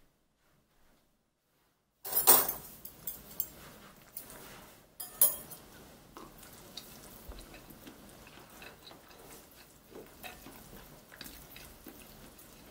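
Metal chopsticks clattering and clicking against a ceramic bowl while mixing noodles. It starts about two seconds in with two loud clatters a few seconds apart, followed by a run of lighter clicks and taps.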